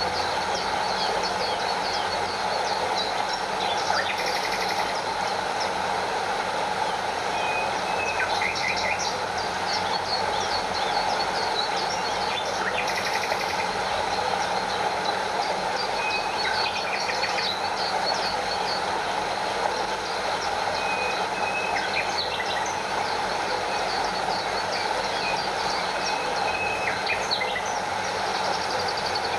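Steady rush of a stream and water spilling over a small waterfall, with birds chirping repeatedly over it.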